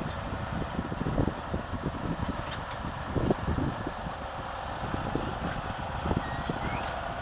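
GS-14 motor grader's diesel engine running steadily, with irregular low thumps and knocks over the hum.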